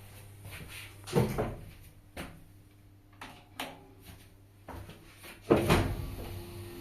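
Elevator doors clattering open and shut: a loud clunk about a second in and another about five and a half seconds in, with a few sharp clicks between them.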